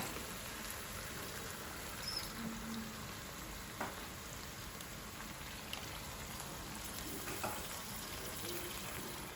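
Chicken livers frying in a pan: a steady, quiet sizzle with a few scattered small pops.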